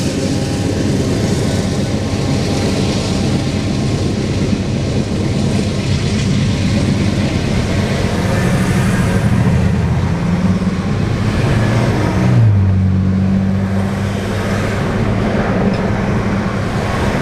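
Road traffic passing close by: car and truck engines and tyres running steadily. Past the middle, one passing vehicle's engine note drops in pitch.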